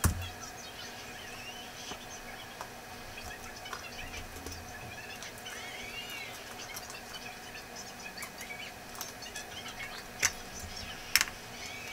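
Birds chirping faintly in the background, with a few sharp clicks, the loudest about ten and eleven seconds in.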